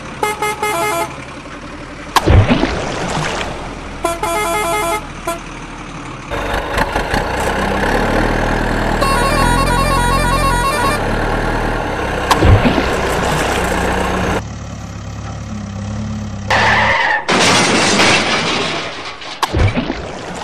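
Truck-horn sound effects: two clusters of short honking toots in the first five seconds. Then a long stretch of low rumbling over background music, a few sharp thuds, and water splashing near the end as a toy excavator tips into the water.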